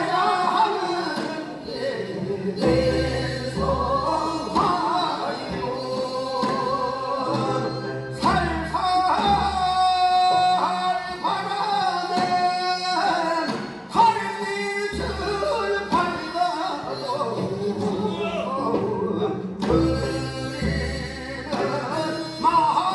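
Korean folk song (minyo) sung by a woman with heavy vibrato, over instrumental accompaniment with a low beat every two or three seconds.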